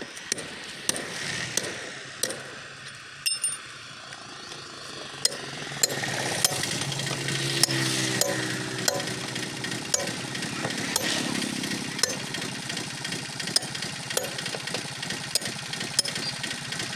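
Sharp metal-on-metal hammer blows, irregular but about one a second, as a hammer drives a tyre lever between a flat tractor rear tyre and its rim. A passing vehicle's engine rises behind them about six seconds in.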